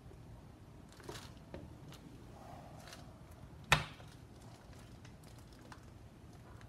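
Faint handling noises from a resin-coated round art board being gripped and moved, with one sharp knock a little over halfway through.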